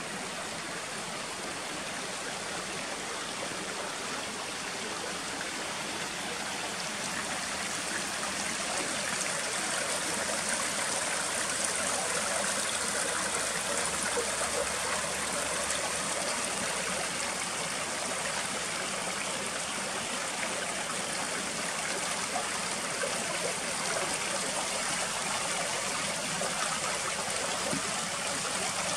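Rapids on a small boulder-strewn river: water rushing and splashing over rocks and little cascades in a steady stream of noise, growing somewhat louder during the first ten seconds or so, then holding steady.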